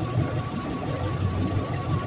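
Rebuilt carbureted marine inboard engine running steadily on a test run after its rebuild, an even low rumble with a thin steady high tone above it.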